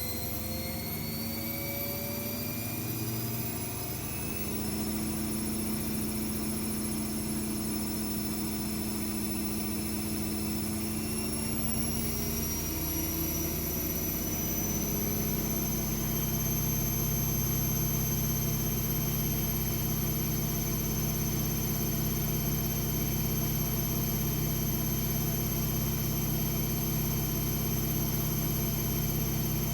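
AEG Lavamat W 1450 washing machine spinning a load of towels: the motor's whine rises steadily in pitch as the drum speeds up, then holds at a steady high pitch once the drum reaches full spin speed, about halfway through.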